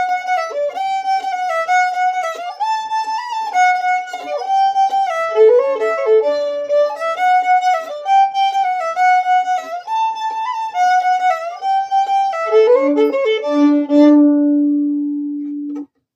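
Solo fiddle playing a folk melody, with a low drone string sounding under much of it. It closes on a long, loud double-stop held from about two seconds before the end, which cuts off sharply.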